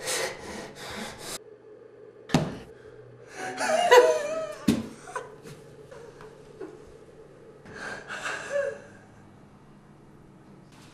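A young man's gasping, breathy laughter in separate outbursts, the loudest about four seconds in and another near eight seconds. Two sharp clicks fall between them.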